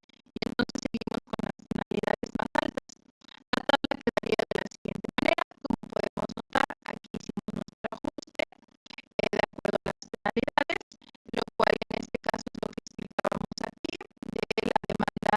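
Music with a choppy, stuttering texture, broken by brief gaps.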